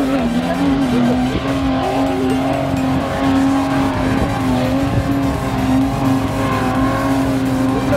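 SUV engine held at high revs as it drives up a steep sand dune, a steady strained tone whose pitch dips briefly and recovers a few times with the throttle.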